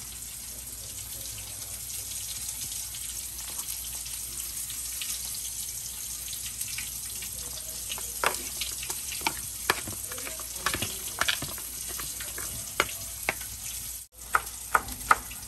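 A steady high hiss, with a fork and spoon clicking and scraping against a plastic tub as raw fish, onion and chili are mixed by hand, the clicks starting about halfway through.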